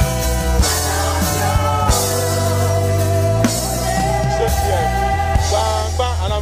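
Live gospel praise music: a man sings over keyboard chords, with a drum kit playing along.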